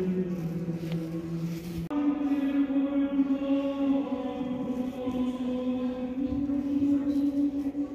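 Background music of slow, chant-like singing in long held notes, moving to a new note about two seconds in.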